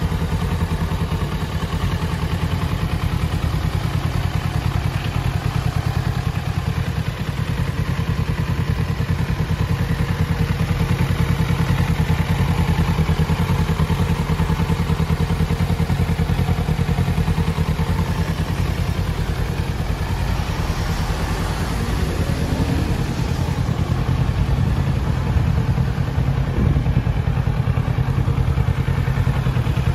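Kawasaki Ninja 650's parallel-twin engine idling steadily.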